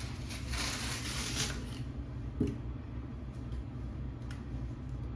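Rustling as a hoodie is handled, loudest in the first two seconds, with a soft thump about two and a half seconds in and a few light clicks after, over a steady low hum.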